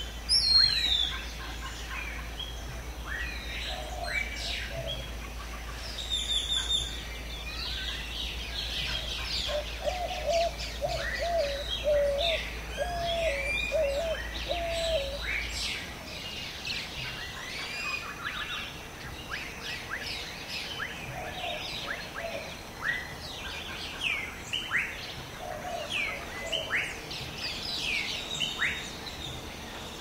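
Many birds calling at once in a tropical rainforest: a dense chorus of short, quick-sweeping whistles and chirps. About ten seconds in, a lower call repeats about six times.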